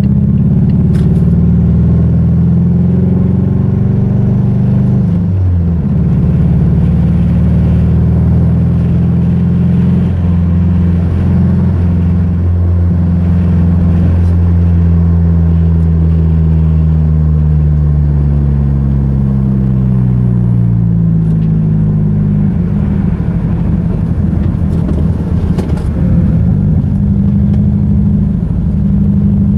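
Mazda 3's 2.3-litre four-cylinder engine running after it blew, heard from inside the cabin while driving, with a fart-can exhaust. Its note sounds like a Subaru. The revs change sharply about five seconds in, fall slowly from about fourteen to twenty-two seconds in, and turn rougher after that.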